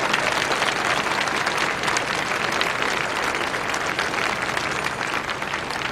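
A large crowd applauding, many hands clapping together steadily, easing off slightly toward the end.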